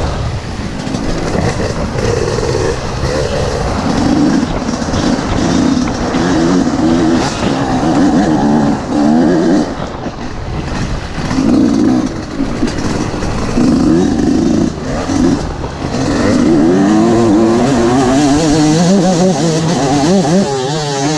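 Dirt bike engine under way on a dirt trail, its note rising and falling again and again as the throttle is opened and closed.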